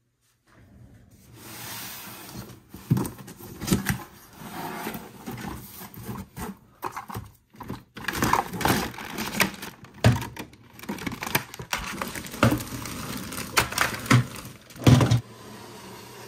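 Cardboard box being opened and hard plastic playset pieces pulled out of it and set down: rustling and scraping of cardboard with repeated sharp knocks of plastic.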